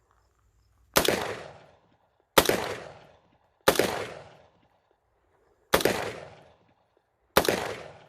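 Five single rifle shots from a 5.56mm Springfield Saint AR-15, fired semi-automatically one to two seconds apart. Each crack trails off in an echo over most of a second.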